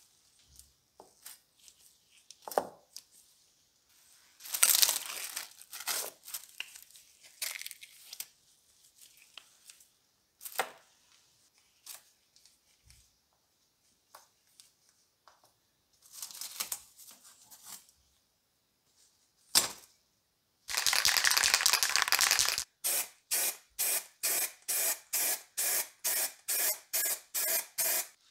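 Masking paper and tape being torn and peeled off freshly spray-painted sheet-metal stove parts, in scattered bursts of tearing and crinkling. Near the end comes a loud hiss of about two seconds, then a quick even run of short rasping strokes, about three a second.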